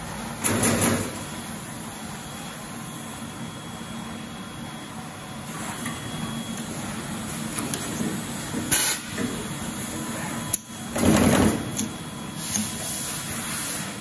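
Automatic wire-cutting and terminal-crimping machine running through its cycle: a steady mechanical run with several short, louder bursts, the loudest about eleven seconds in.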